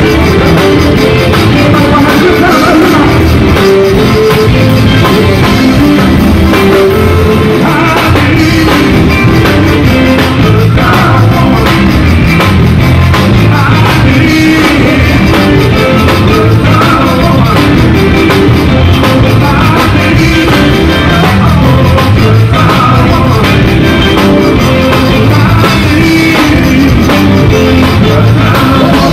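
Zydeco band playing live and loud, with accordion, keyboards, drums and a lead vocal singing over a steady beat.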